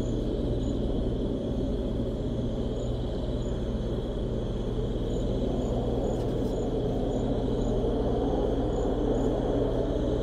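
Steady wind rumble with a continuous high cricket trill and faint chirps over it.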